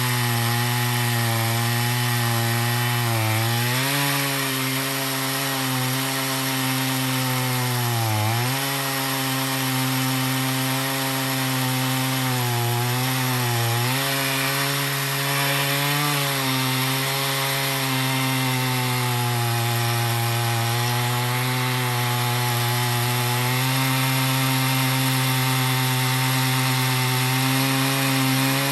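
Two-stroke chainsaw running at high throttle, ripping lengthwise through a cedar log in a milling cut. Its pitch sags briefly about four times as the engine bogs under load, then picks back up.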